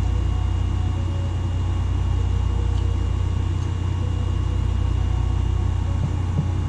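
A steady low hum with a thin high-pitched whine over it, unchanging throughout.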